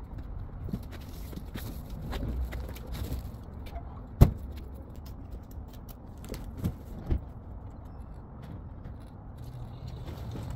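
Handling noises from a large cardboard box being unloaded from the back of a car and carried off: a sharp bang about four seconds in, then a few softer knocks and small clicks over a low rumble. A low steady hum starts near the end.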